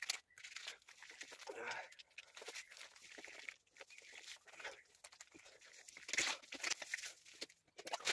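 Hands scrubbing shampoo lather through wet hair, a wet rubbing in uneven strokes, a bit louder around six seconds in.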